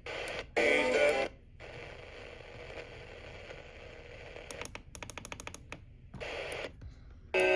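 Radio receiver hiss between broadcasts, broken by a few short snatches of broadcast audio and a run of faint clicks about five seconds in.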